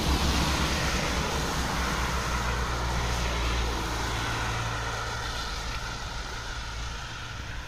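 Car driving past on a wet road, its tyres hissing over a low engine rumble. Loudest at the start, then fading steadily as it moves away.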